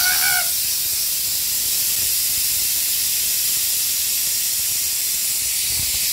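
Pressure cooker letting off its whistle: steam jets out under the lifted weight valve with a loud, steady hiss, the sign that pressure has built up inside while the dal cooks.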